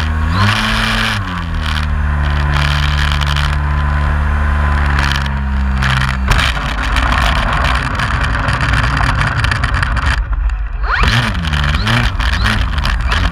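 Brushless electric motor and propeller of an RC MX2 aerobatic plane heard from onboard, a steady whine that rises briefly and settles lower, then cuts off about six seconds in as the plane lands. The wheels rumble over the ground as it rolls out, and near the end the motor whines up and down in short bursts of throttle while taxiing on grass.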